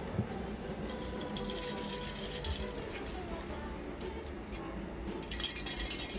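A plastic cat toy ball with a rattle inside, shaken or rolled in two bouts of rattling: the first about a second in, lasting a couple of seconds, the second near the end.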